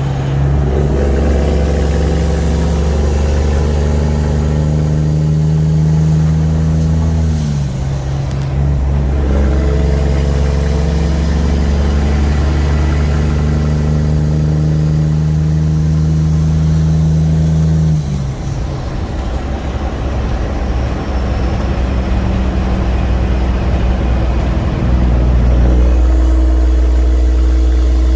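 Semi truck's Cummins heavy-duty diesel pulling through the gears. Engine speed climbs, then drops at a shift about seven seconds in and again about eighteen seconds in, and settles to a steadier, lower note near the end.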